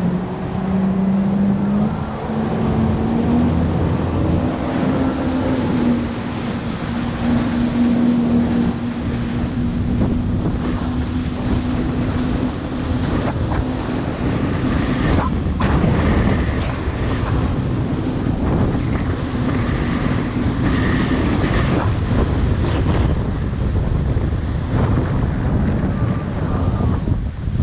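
Jet ski engine running under way, its steady drone edging up in pitch over the first several seconds, with heavy wind buffeting the action-camera microphone.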